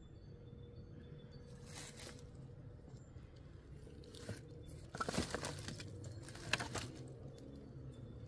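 Dry wood being picked up and gathered by hand, the pieces crunching and cracking against each other. One crunch comes about two seconds in, and a dense run of crunches from about five to seven seconds in.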